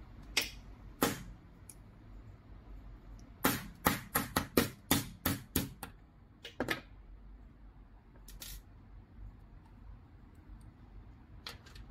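Sharp clicks and taps of small parts being handled: a steel pin, needle-nose pliers and plastic RC car suspension parts knocking together. Two clicks, then a quick run of about ten a few seconds in, then scattered single clicks.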